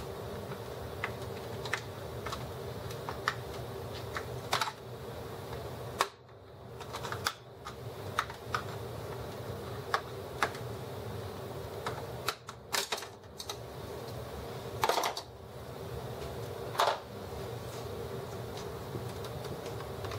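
Irregular plastic clicks and clacks from the front control-panel housing of an HP Officejet R80 printer as it is worked loose with a small tool, a few of them louder snaps, over a steady low hum.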